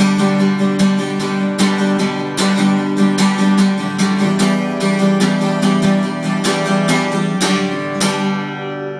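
Acoustic guitar strummed in a steady run of chords. The last chord is struck about eight seconds in and left to ring out and fade.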